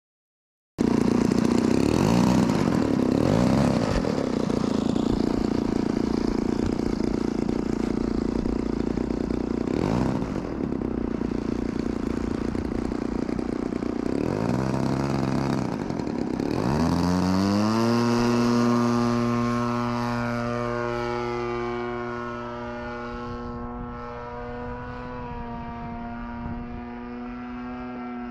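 Hangar 9 Ultra Stick radio-control airplane flying at full power, its motor and propeller giving a strong buzzing note that sweeps down in pitch on several close passes. About 17 s in the note rises and then holds steady as the plane flies off and slowly fades.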